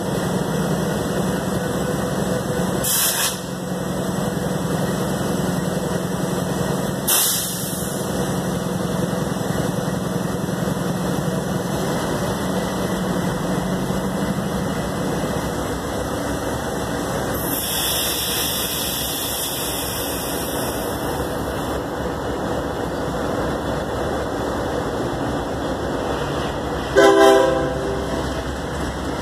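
CSX diesel freight locomotives idling with a steady low rumble, with two sharp clicks early on and a few seconds of air hiss past the middle. Near the end comes one short blast of the locomotive's air horn, the loudest thing here.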